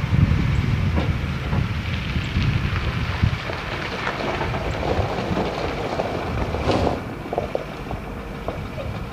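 The Caterpillar 3208 V8 diesel engine of a 1984 Ford 8000 truck running with a steady low rumble, with wind noise on the microphone. There is a short, louder burst of noise about seven seconds in.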